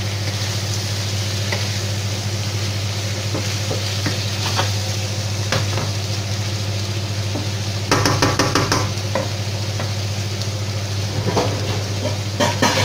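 Chickpeas and spinach sizzling in a nonstick frying pan while a wooden spatula stirs and scrapes through them, with a quick run of spatula knocks against the pan about eight seconds in. A steady low hum runs underneath.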